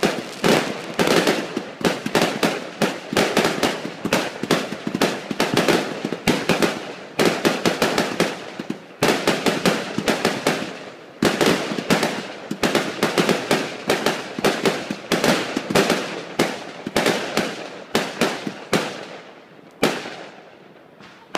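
Fireworks finale barrage: aerial fireworks bursting in rapid succession, several bangs a second with crackling between them. The bangs thin out and die away near the end.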